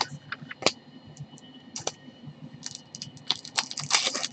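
Trading cards being handled and sorted in gloved hands: a run of quick clicks and snaps, sparse at first and coming thick and fast about three seconds in.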